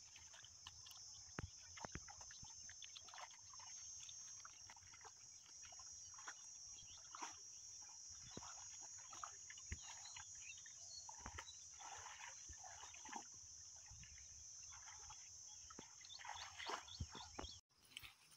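Faint rustling and splashing as hands tear out grass and scoop mud from a shallow water-filled ditch, many small scattered sounds, over a steady high-pitched hum.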